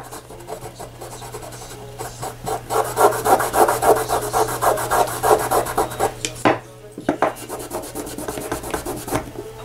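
A cloth rubbed fast back and forth along the edge of a painted coaster piece, scrubbing off paint that is only dry to the touch to give it a distressed look. The strokes come several a second, with a brief pause about two-thirds of the way through.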